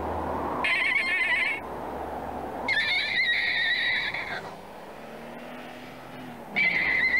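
Three long, wavering tyre-screech sound effects, each a high squeal that wobbles in pitch, over a low engine hum.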